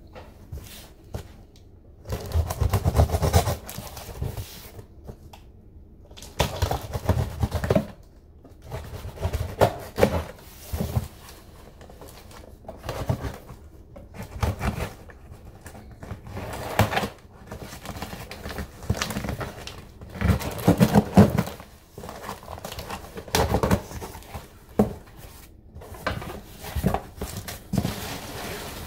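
A cardboard shipping box being handled and opened by hand: cardboard and tape tearing and rustling as the flaps are pulled open, and the box shifting and bumping on the counter, in bursts every few seconds.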